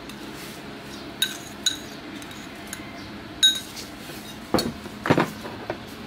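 Metal spoon clinking against a small bowl as chilli sauce is scraped into a bowl of noodles: three sharp ringing clinks, then a few duller knocks and clatter of dishes near the end.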